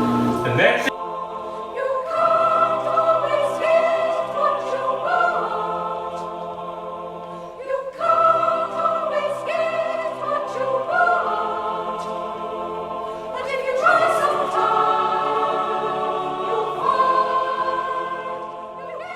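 Music with a choir singing sustained chords over an orchestra, changing abruptly about a second in.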